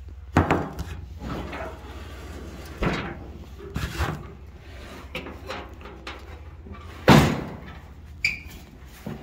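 A series of metal clunks and knocks as the hood of a 1946 International pickup is unlatched and swung open. The loudest knock comes about seven seconds in.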